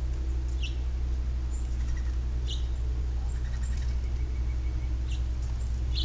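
Short, high chirps from small songbirds, about four in all, over a steady low electrical hum.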